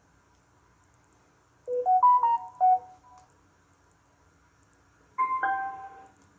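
A Bluetooth speaker's electronic prompt tones. A quick jingle of short stepped beeps plays about two seconds in, and a second, fuller chime plays about five seconds in.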